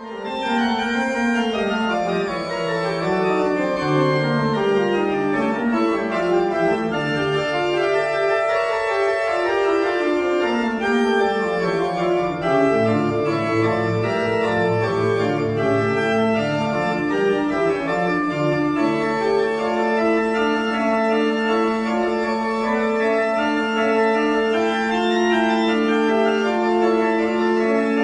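Organ music playing sustained chords and a moving melody, with a long held low note through the last third.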